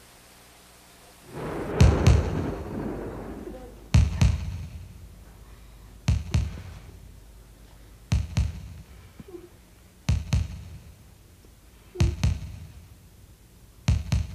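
Soundtrack effect of slow, heavy double thuds, seven of them about two seconds apart, each with an echoing tail. A low rushing swell comes in with the first thud, about two seconds in.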